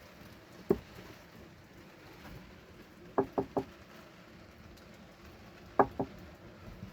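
Knuckle knocks on a hollow wooden (MDF) speaker cabinet: a single knock, then a quick run of three, then two more.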